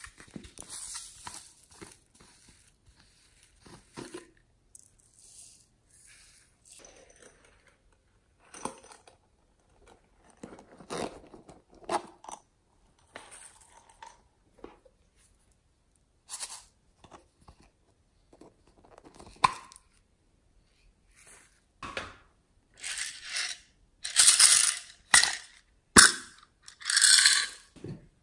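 Slime and its plastic tubs being handled: a lid opened, slime pulled out of its container and dropped into a tray. It comes as short irregular sticky and crackly sounds with pauses between them, loudest in the last few seconds.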